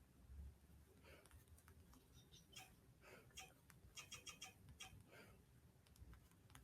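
Near silence: room tone with faint scattered clicks, and a brief run of faint high chirps about four seconds in.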